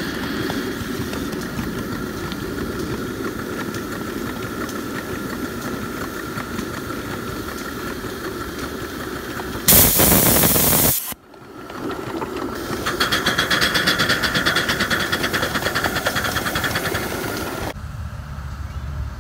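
Small ride-on live steam locomotive running along the track, then a loud burst of escaping steam lasting about a second, about ten seconds in. After a brief lull comes a fast rhythmic hiss, and near the end the sound drops to a quieter background.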